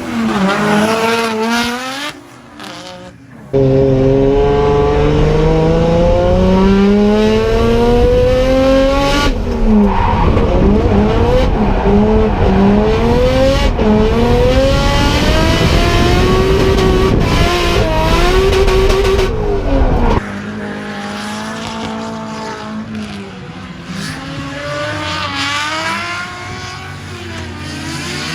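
Nissan S14's swapped RB25 turbocharged straight-six revving hard on drift runs, its pitch repeatedly climbing and dropping as the throttle is worked, with tyres squealing. The engine note is loudest through the middle and cuts abruptly between several takes.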